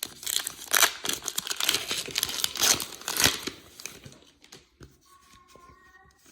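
Trading-card pack wrapper being torn open and crumpled: a dense run of crinkling crackles for about four seconds, then softer rustling as the handling eases.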